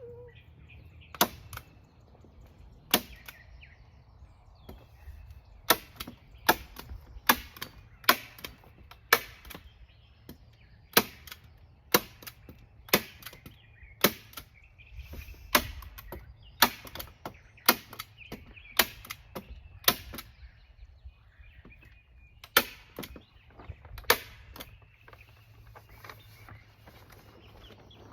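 Heavy-duty staple gun firing staples into greenhouse plastic and the wood frame: about twenty sharp snaps, roughly one a second, with a short pause about two-thirds of the way through.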